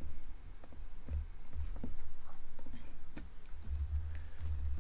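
Computer keyboard keys tapped in scattered, irregular keystrokes, with a few dull low thumps beneath.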